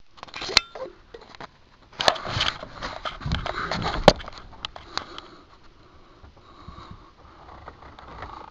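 Handling noise from a hand-held camera being moved about: rustling, bumps and several sharp clicks. It is loudest between about two and four and a half seconds in, then fades to faint rustle.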